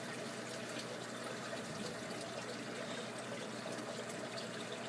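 Steady trickle of running water in an aquaponics system, with a faint low hum underneath.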